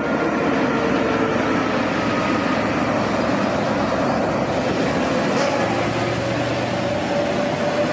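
Large multi-axle mobile crane driving by: a steady diesel engine drone mixed with tyre and road noise. The engine's tone rises slightly in pitch in the second half.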